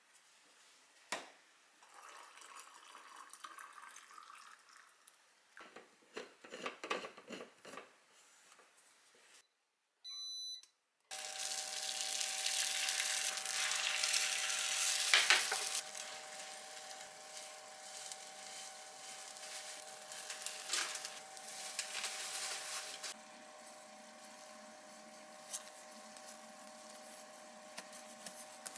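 Light handling clicks and clatter, then a short electronic beep. Beaten egg then sizzles in a rectangular tamagoyaki pan on an induction cooktop, with a steady hum under it. Near the end the sizzle gives way to quieter handling of a bamboo sushi mat.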